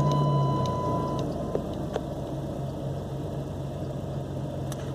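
1997 Dodge Dakota's 3.9-liter V6 idling just after being started, a little louder for the first second or so before settling to a steady idle. A thin high steady tone stops about a second in.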